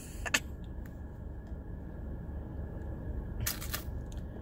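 Steady low hum of a car's air conditioning running on low in a parked car, with a small click just after the start and a brief burst of handling noise about three and a half seconds in.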